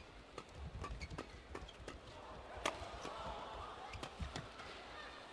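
Badminton rally: rackets striking the feather shuttlecock in sharp, irregular cracks, several a second, the loudest one about two and a half seconds in. Under them, an arena crowd murmur swells from about halfway.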